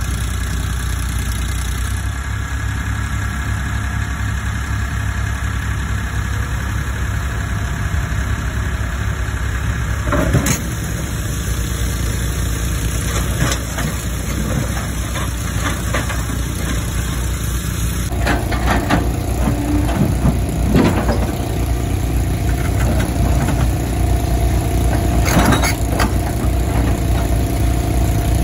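Tata Hitachi Zaxis 120H excavator's diesel engine running steadily while the machine works a heavy boulder, with a few sharp knocks. A steady whine joins about two-thirds of the way in.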